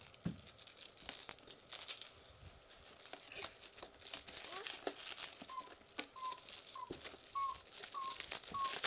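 Crinkling and clicking of something being handled, likely plastic. From about halfway through, a run of short, high chirps repeats roughly twice a second.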